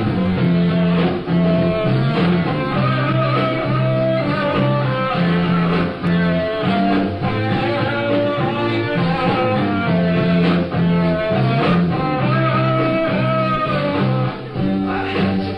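Rock band playing, guitar to the fore over bass and drums, with a steady beat.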